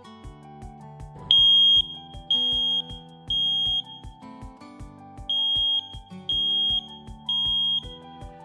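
CPVAN SM11 smoke detector sounding its alarm: a high, piercing beep in two groups of three half-second beeps, with a longer pause between the groups. This is the standard three-beep evacuation pattern of smoke alarms.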